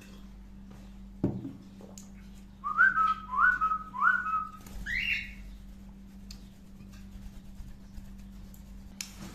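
Whistling: three short notes in quick succession, each sliding up and then held, followed by a higher note that rises. A thump comes about a second in.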